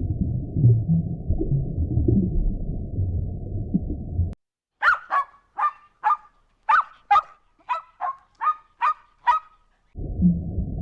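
A low, muffled rumbling noise stops abruptly, and after a short gap a bird gives about a dozen short, loud calls in a quick series, about two a second. The low muffled noise starts again near the end.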